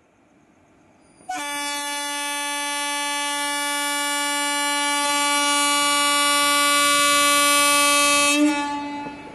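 WAP-4 electric locomotive's horn sounding one long, steady blast of about seven seconds, starting about a second in and cutting off near the end: the train's signal that it is about to depart.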